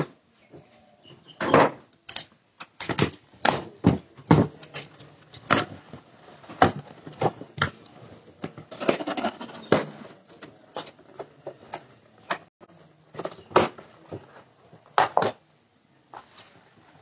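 A white cardboard cake box being opened and its sides folded down: irregular taps, knocks and scrapes of cardboard against a glass-topped table, some sharp and loud, with short rustles between them.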